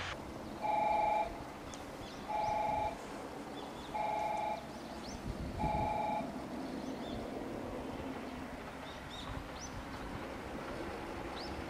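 An electronic two-tone warning beeper beeps four times, evenly about a second and a half apart, then stops. Faint chirps follow.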